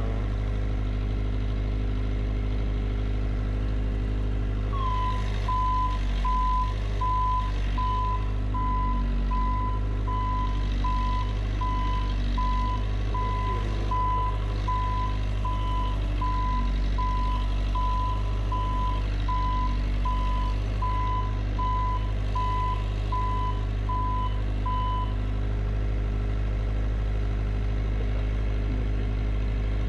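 JLG 150HAX boom lift's engine running steadily, with the lift's warning beeper sounding a repeated single-tone beep, about one and a half beeps a second, from about five seconds in until near the end. The beeper is the lift's motion alarm, sounding while a boom function is operated.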